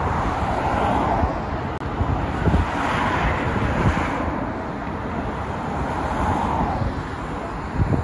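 Steady highway traffic noise, rising and falling as vehicles pass, with wind on the microphone and a few low knocks.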